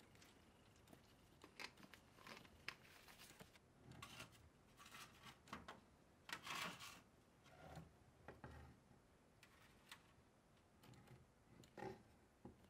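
Faint scattered rustles and small clicks as a disposable aluminium foil tray of rust-remover liquid is handled, the loudest a short rush of noise about six and a half seconds in.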